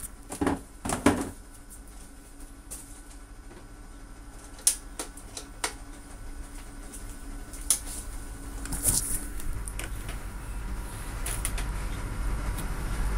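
Sharp clicks and knocks of things being handled, a cluster in the first second and a few single clicks later, over a steady low rumble from the gas stove's burner flame that grows louder near the end.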